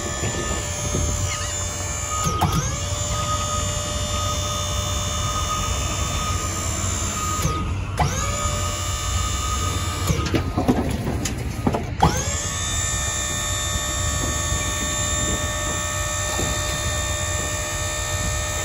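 Electric hydraulic pump motor of a dump trailer whining steadily as it raises the bed. It cuts off and restarts about three times, each restart a quick rising whine that settles to a steady pitch.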